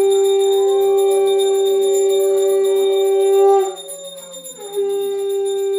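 A conch shell (shankha) blown in a long, steady, loud note for the puja. It breaks off about three and a half seconds in and starts again about a second later, with a hand bell ringing rapidly alongside.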